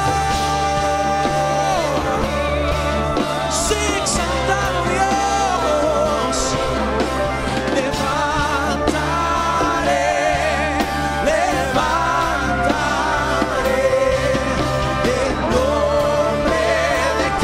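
Live worship music: several singers with a full worship band of electric guitar, keyboard and bass, singing a slow Spanish-language worship song with wavering, sustained notes.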